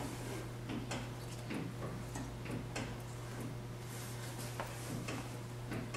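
Irregular small clicks and ticks, about two a second, as brake fluid and air are bled from the front right brake through a tube into a plastic catch bottle. A steady low electrical hum runs under them.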